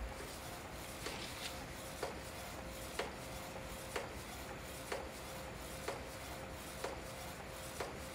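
Epson Stylus Photo 1400 inkjet printer printing on DTF film: a click about once a second as the print head carriage sweeps back and forth, over a faint steady hum.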